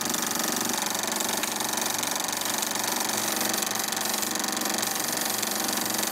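Film projector running: a steady, fast mechanical clatter.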